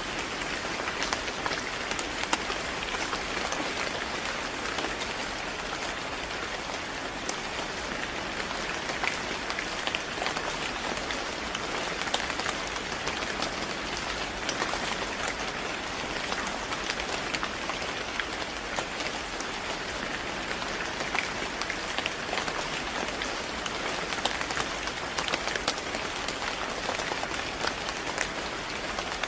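Steady rain falling on a hard surface, a dense even hiss with fine scattered drop ticks.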